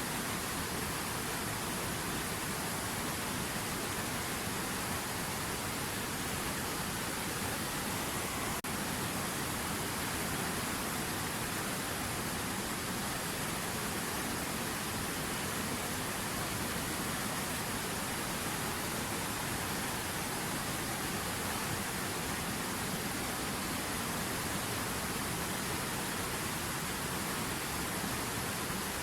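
River water running, a steady even rush with no change in strength, broken only by a momentary dip about nine seconds in.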